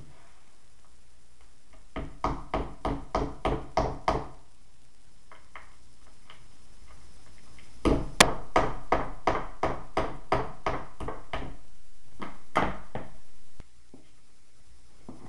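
Quick runs of sharp knocks on a wooden skateboard deck, about four a second, while the hardware is being fitted. A short run comes first, then a longer, louder one that opens with a sharp click.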